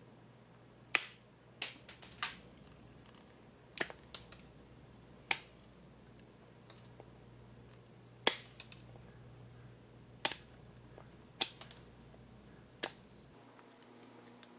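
Carving knife cutting into a small block of wood: about ten short, crisp snaps at irregular intervals, each one a single cut.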